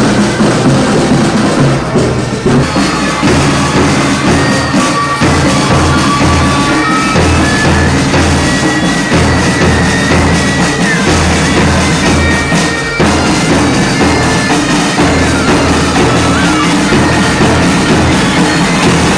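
Music with a steady, driving drum beat under a held melody line.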